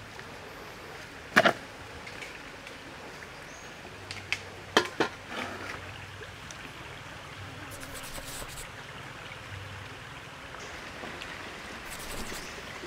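Hands handling a whole raw chicken on a woven bamboo tray: a few sharp knocks and taps, the loudest about a second and a half in, and brief rustles, over a faint steady hiss.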